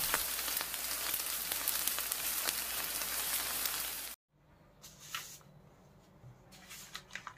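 Steady sizzling hiss with fine crackles, like food frying in a hot pan, that cuts off suddenly about four seconds in. After it come a few faint taps and paper rustles as a paper-wrapped roti is handled.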